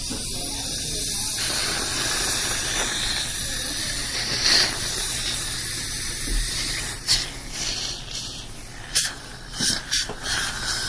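Dentist's water spray rinsing a mouth, with a steady hiss, then several short sharp clicks in the last few seconds.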